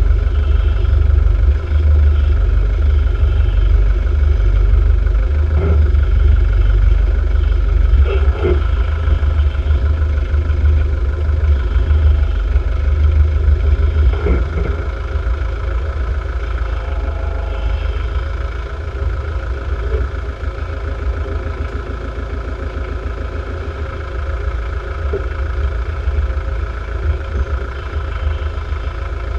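A 300Tdi Land Rover Discovery's turbodiesel engine running at low revs as the truck crawls down a rough, rutted lane. There is a heavy low rumble throughout, and a few knocks from the truck working over the ground.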